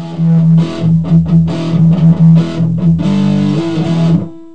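Short guitar-driven intro music sting, fading out near the end.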